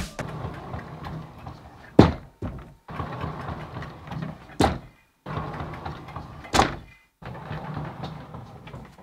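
An interior sliding door rolls along its track and knocks against the door frame as it shuts. This happens three times, and the first knock is the loudest bang.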